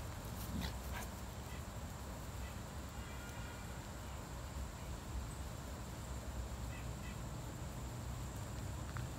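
An adult dog and a puppy play-wrestling, with soft dog play noises and a brief high whine about three seconds in, over a steady low rumble.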